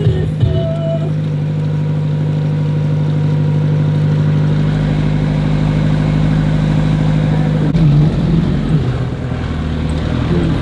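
Jeep engine running steadily as it drives along the road, heard from inside the open cabin with road rumble. A deeper rumble joins about four seconds in, and the engine note shifts near the end.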